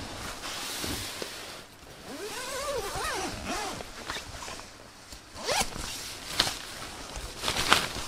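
A zipper pulled in several quick strokes in the second half, the last the loudest, with rustling of clothing and gear as a person gets up and moves about. A few short wavering pitched sounds come shortly before the middle.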